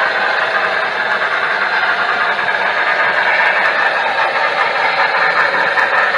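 HO-scale Broadway Limited Paragon3 model of N&W steam locomotive 2180 running under power, its onboard sound system playing steam-locomotive running sounds through a small speaker, mixed with the rolling noise of the model train's wheels on the track. The sound is loud and steady.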